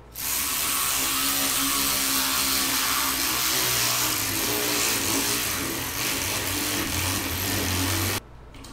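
Milwaukee 12-volt 3/8-inch cordless ratchet with a brushed motor running continuously under load as it drives a lag screw into a wooden beam. It runs loud and steady for about eight seconds, then stops abruptly.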